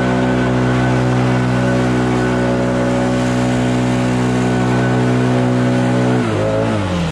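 Gas leaf blower running steadily at full throttle, its engine note falling near the end.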